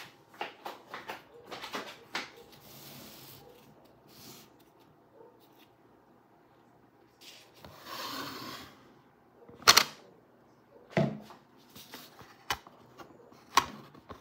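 Handling noises around a stick blender and glass bowl: scattered light clicks, a short rustle about halfway, then four sharp knocks in the last five seconds, the first the loudest. The blender's motor is not running.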